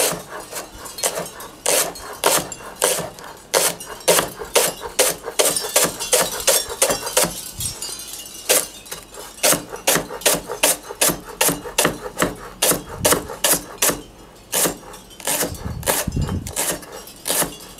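A kitchen knife slicing a leek finely on a cutting board: a run of sharp knocks as the blade meets the board, about three a second and unevenly spaced, with a few short pauses.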